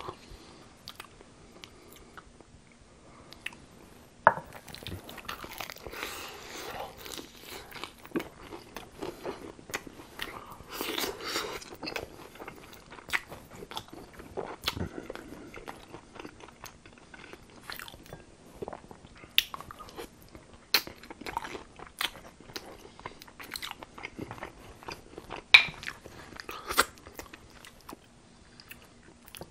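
Close-miked biting and chewing of crispy battered fried chicken: sharp crunches of the fried batter, loudest about four seconds in and twice near the end, with wet chewing between.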